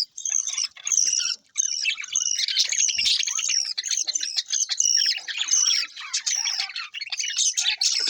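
Budgerigars chattering: a dense, continuous run of fast, overlapping chirps, warbles and short squawks, with brief breaks near the start and about a second and a half in.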